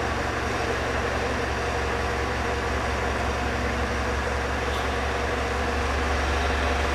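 JCB rough-terrain forklift's diesel engine running steadily as the truck moves slowly with a steel staircase held on its forks.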